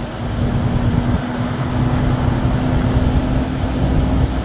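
Steady engine and road rumble heard from inside a moving vehicle, with a constant low hum.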